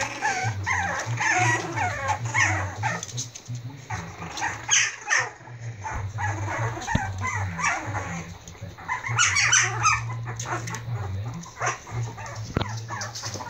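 Four-week-old Prague Ratter puppies yipping and barking in play as they romp and wrestle, with short high-pitched calls scattered throughout and bunching up in a few busy spells.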